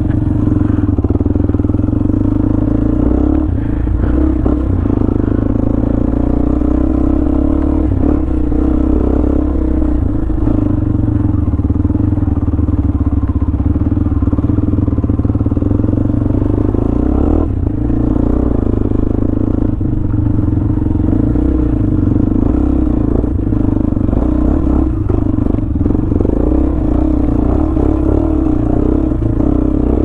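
Honda CB500X's parallel-twin engine running at a steady, low pace on a rough dirt trail, with short knocks and rattles from the bike jolting over bumps.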